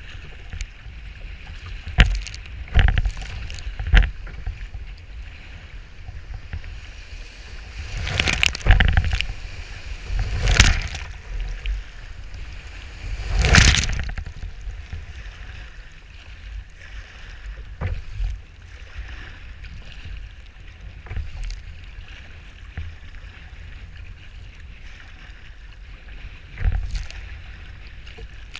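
Sea kayak punching through breaking surf in strong wind: a steady low rush of wind and choppy water, broken by a series of loud splashes as waves and paddle strokes slap water against the hull and over the bow, the largest about halfway through.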